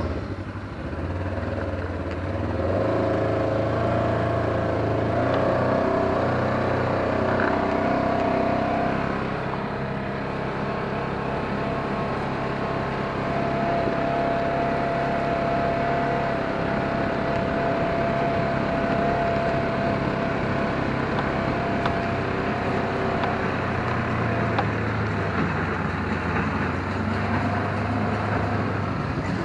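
Engine running steadily, with a steady whine above it for much of the time.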